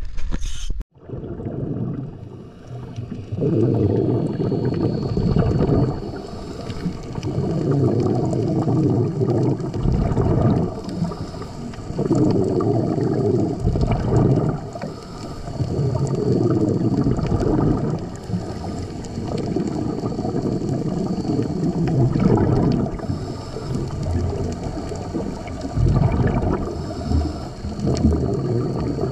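Underwater sound of a scuba diver breathing through a regulator: exhaled bubbles gurgling out in surges every few seconds, with quieter stretches between breaths.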